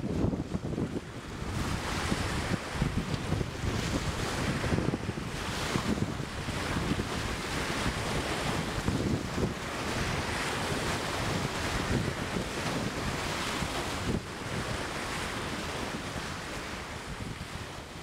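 Wind buffeting the microphone over surf on a shore: a steady rushing noise with gusty low rumbles.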